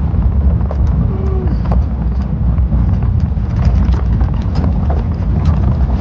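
Truck driving over a rough dirt ranch track: a steady low rumble with frequent irregular knocks and rattles from the bumps.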